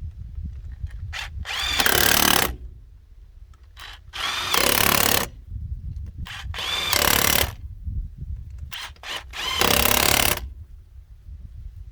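A handheld power tool run in four short trigger bursts, each under a second, with a whine that rises and falls as it spins up and stops, while wheels are being worked on a 1964 Chevrolet Impala.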